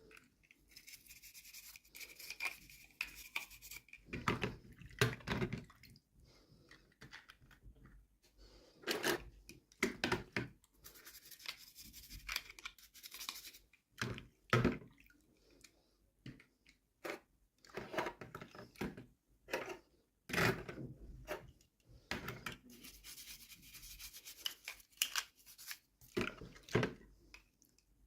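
Hands unboxing miniature toys: irregular rustling, rubbing and tearing of packaging, with scattered clicks and handling knocks.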